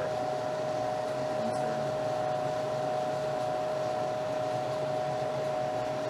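Refrigeration training unit running: a steady fan whir with a constant pitched hum over it.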